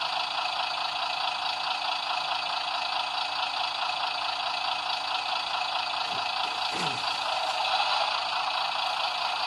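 DCC sound decoder in a model Class 128 parcels railcar playing its start-up sequence: a recorded diesel railcar engine, based on the Class 108 DMU engine sound, running steadily. It comes through the model's small speaker, thin and with little bass.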